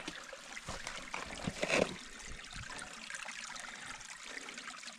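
Shallow, low-running creek trickling steadily, with a brief louder noise a little under two seconds in.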